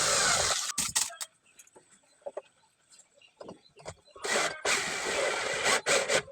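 A power drill runs and stops under a second in. Scattered sharp clicks and knocks follow, from hardware and aluminium cabinet parts being handled, with a short burst of louder rattling noise about two-thirds of the way through.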